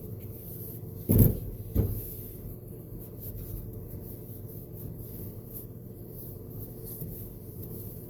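Steady hum of a small vent fan running, with a short loud burst of noise about a second in and a shorter one just after.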